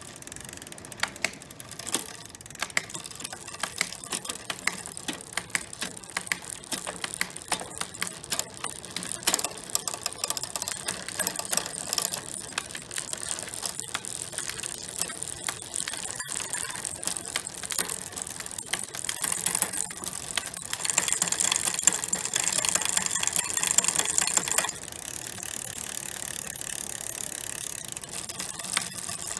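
Bicycle drivetrain being run, likely on a repair stand: chain running over the rear cassette and derailleur pulleys with dense, irregular clicking, as the cranks turn during cable-tension adjustment of the rear derailleur. About three-quarters through it grows louder and hissier for a few seconds, then drops back suddenly.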